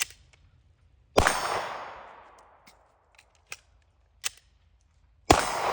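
Two pistol shots from a 9mm Glock 19, about four seconds apart, each followed by a long echoing tail. A few light clicks sound between them as the magazine is changed.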